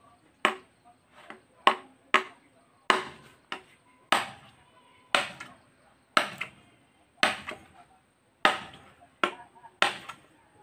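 Machete chopping into a green bamboo stalk: about a dozen sharp, separate whacks at an uneven pace of roughly one a second.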